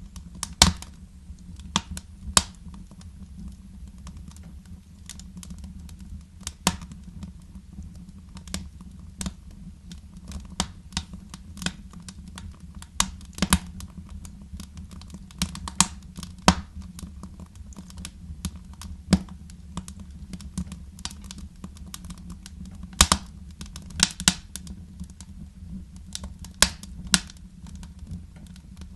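Wood fire crackling in a fireplace: irregular sharp pops and snaps, some louder than others, over a steady low rumble.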